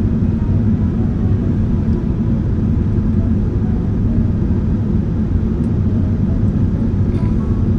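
Steady low rumble of a jet airliner's engines and rushing air during the approach, even and unchanging throughout.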